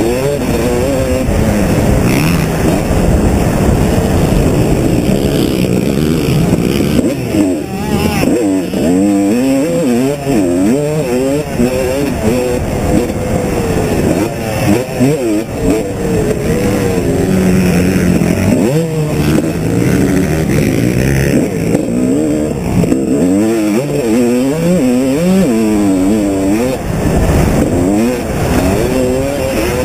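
Motocross bike engine revving hard, its pitch climbing and dropping over and over as the rider accelerates, shifts and backs off, heard on board over wind and track rumble.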